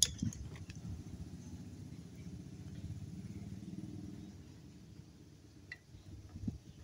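Faint low rumble that swells toward the middle and dies away after about four and a half seconds, with a sharp click at the start and a few small clicks near the end.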